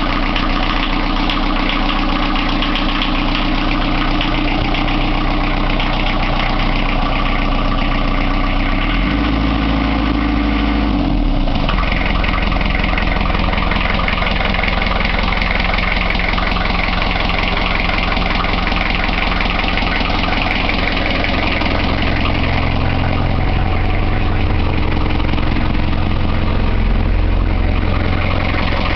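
BMC 1.8 four-cylinder diesel inboard engine ticking over steadily, its note shifting briefly about nine seconds in. It runs smoothly and sounds in good order.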